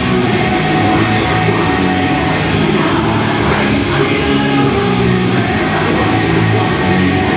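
Loud rock music playing continuously, in a heavy-metal style.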